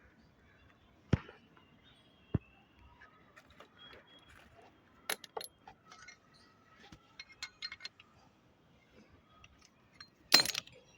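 Metal tools and copper pipe clinking and knocking as they are handled during flaring work: two sharp knocks, a run of light ticks, then a louder clatter near the end.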